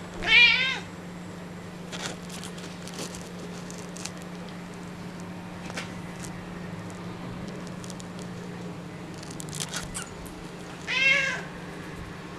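A domestic cat meowing twice, two short calls about ten seconds apart, each rising then falling in pitch. Faint clicks and a steady low hum lie between the calls.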